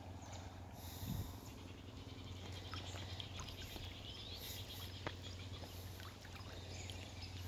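Faint bird chirps and a short trill over a low steady hum, with scattered small ticks and a soft thump about a second in.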